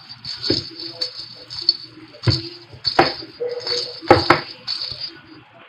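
A cluster of hollow plastic lattice cat-toy balls with jingle bells inside, hanging on a string, rattling and jingling as a cat bats and grabs them. Several sharp knocks of the balls striking each other, the loudest a little past two, three and four seconds in; the jingling dies away just before the end.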